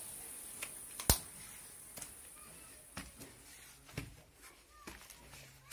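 Footsteps on stone steps, about one a second, with one sharper knock about a second in, over a faint high steady buzz.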